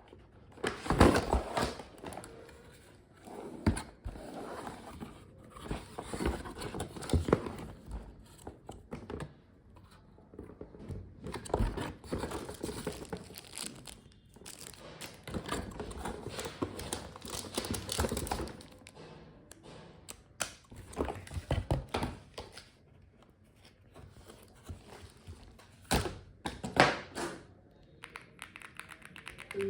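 Keyboard packaging being handled: wrapping crinkling and rustling in irregular bouts, with dull thunks and sharp knocks as the box and keyboard are moved and set down.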